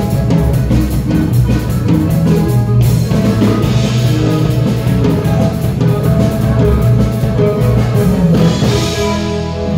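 Loud dance music played through a DJ's sound system, with a steady beat and heavy bass.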